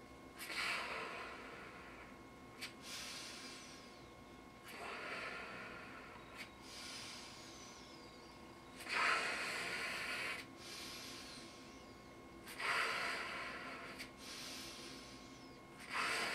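A person repeatedly blowing into a large balloon, each breath a rush of air about every four seconds, five times, with sharp breaths in through the nose between blows.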